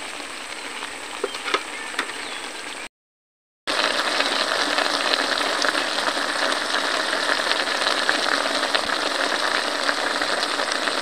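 Mixed vegetables sizzling and bubbling in a little water in a wok on a portable gas stove, with a few light clicks of a metal spatula at first. The sound drops out briefly about three seconds in, then the sizzling comes back louder and steady.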